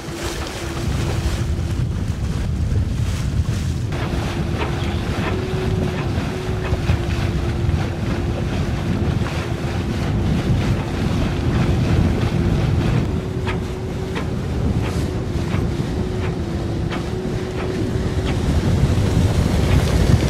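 Wind buffeting the microphone and water rushing along the hull of a sailboat under way, with a steady hum underneath. Near the end a passing motorboat's engine comes up and it gets louder.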